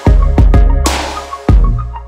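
Background music with deep bass and sharp hits on a strong beat.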